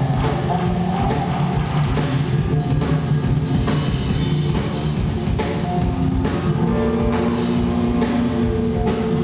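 Live rock band playing loudly, with a drum kit driving the beat under electric guitar.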